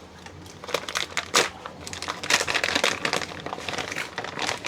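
Plastic packaging crinkling and rustling in the hands, with a few sharp crackles, while a filament roll is handled.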